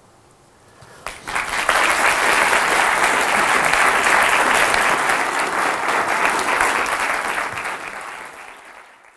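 Audience applauding: the clapping starts about a second in, swells quickly to a steady level, then fades away near the end.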